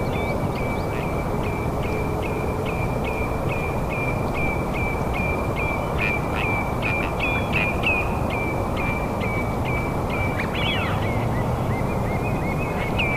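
A bird calling in a fast, regular series of short high chirps, about three a second, with a few other chirping calls in the middle and near the end. A steady low rumble runs underneath.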